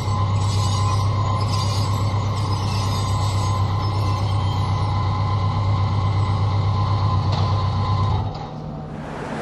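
Steady, loud low machinery drone and hum in a ferry's enclosed vehicle deck. It drops away sharply about eight seconds in.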